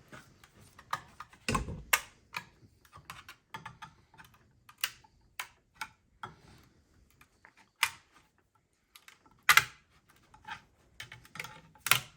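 Hand tools and small metal parts of a 700R4 automatic transmission clicking and clacking irregularly as it is taken apart on the bench, with a heavier knock about one and a half seconds in and sharper clacks near the end.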